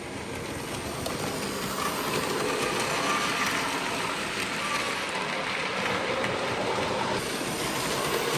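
00 gauge model train running along the track on the layout, a steady rumble of wheels and motor that grows a little louder over the first two seconds, then holds.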